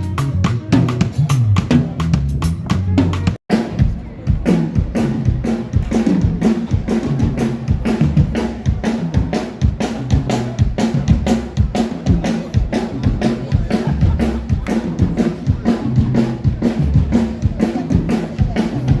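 Live band sound check: a drum kit plays a busy, steady beat with kick and snare to the fore, over a bass line. The sound drops out for an instant about three and a half seconds in.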